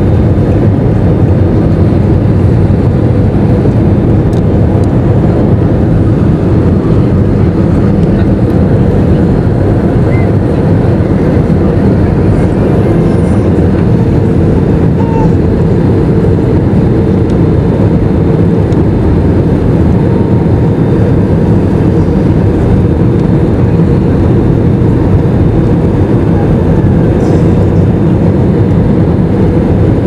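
Airliner cabin noise from a window seat over the wing: the underwing turbofan engine and the airflow make a loud, even rumble with a faint steady hum, as the plane descends on approach.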